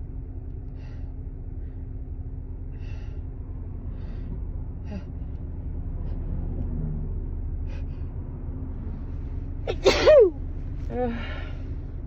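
A woman's single loud allergy sneeze into a handkerchief, coming suddenly about ten seconds in after a few faint breaths, and followed by a short gasping breath. A steady low rumble runs underneath.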